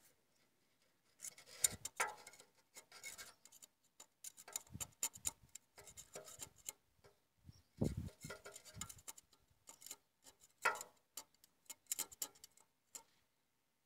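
Metal hand tools clicking, tapping and scraping against the injector and rocker parts of a Caterpillar 950F diesel engine: scattered light clicks and rubs, with a few louder knocks.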